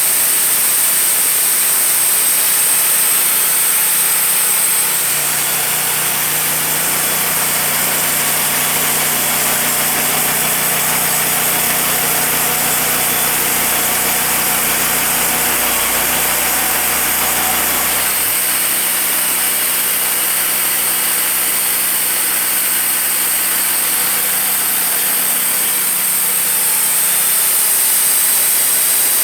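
Wood-Mizer portable sawmill's engine running steadily, its tone shifting several times as the load changes.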